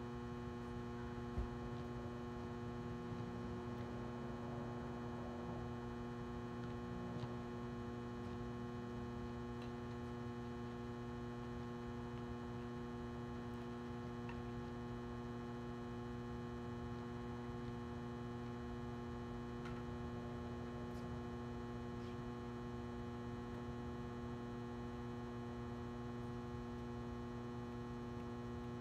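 Steady electrical mains hum, a low buzz with a ladder of higher overtones that does not change, typical of the ballasts of floodlights over a tennis court.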